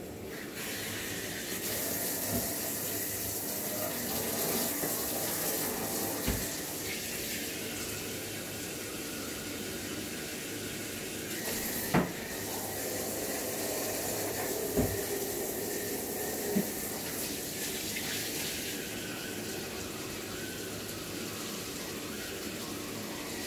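Water running from a hand-held grooming-tub sprayer: a steady hiss that comes on about half a second in, with a few light knocks.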